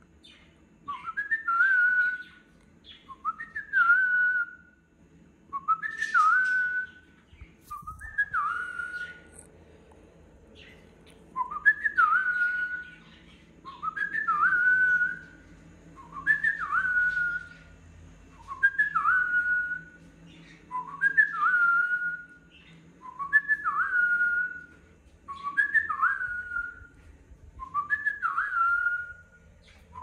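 Cockatiel whistling the same short phrase over and over, about once every two seconds: each phrase is a quick rising note that settles into a short wavering whistle. There is one longer pause about a third of the way through.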